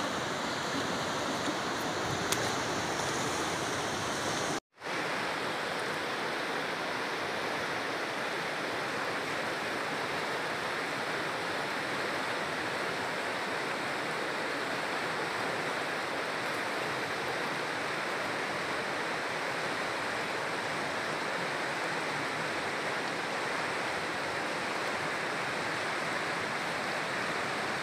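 Steady, even rushing of river water flowing, which cuts out for an instant about five seconds in.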